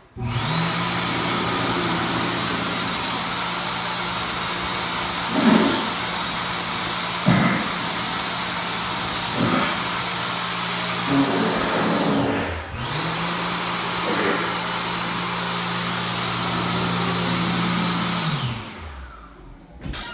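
Electric blower motor running with a steady low hum and a high whine. It starts abruptly, spins down and restarts about two-thirds of the way through, then winds down near the end. A few short knocks sound over it in the middle.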